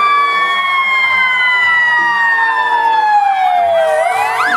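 Ambulance siren: a held wail that slowly falls in pitch, switching near the end to a fast rising-and-falling yelp.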